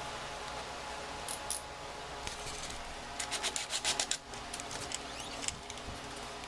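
Screws being driven into the wooden beam support of a wine rack: a rubbing, rasping sound of the screws working into the wood, with a run of quick clicks, about six a second, in the middle.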